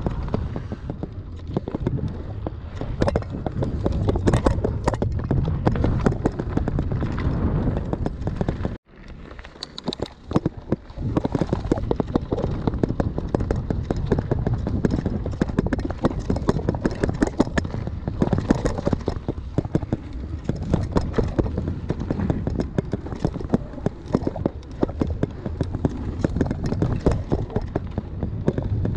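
Mountain bike descending a dirt bike-park trail at speed: a continuous dense clatter of tyres on packed dirt and loose gravel, with the chain and bike rattling over bumps, and wind rumbling on the camera microphone. The sound cuts out abruptly about nine seconds in and is back to full level about two seconds later.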